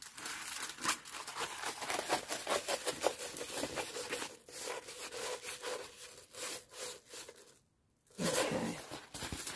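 A rolled-up diamond painting canvas, with its plastic release sheet, being rolled back and forth under both hands on the table: a run of rustling, rubbing strokes. It breaks off for about half a second near the end, then starts again.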